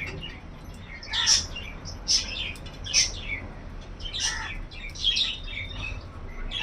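Birds chirping: short, sharp high calls about once a second, over a steady low hum.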